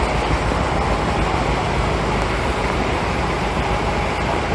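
Steady rushing of fast-flowing floodwater across a road, a loud even roar with no breaks.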